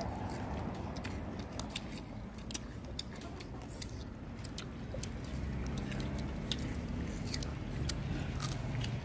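People biting and chewing raw fruit: a scatter of short, irregular mouth clicks and small crunches over a low steady background.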